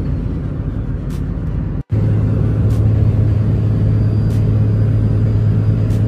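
Inside the cab, a compound-turbo 5.9 Cummins diesel pickup pulls up a long grade at highway speed: a steady, loud, low engine drone over road noise. The sound cuts out for an instant about two seconds in.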